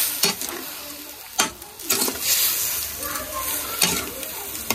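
A metal spatula stirring and scraping roasted vermicelli in a hot steel kadhai as milk is mixed in, with several sharp scrapes of the spatula against the pan. A steady sizzle comes from the milk on the hot pan.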